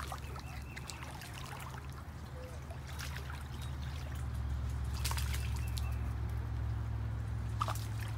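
Water splashing as a hooked fish thrashes at the surface close to the bank, in a few sharp splashes, the strongest about five seconds in and again near the end, over a steady low rumble.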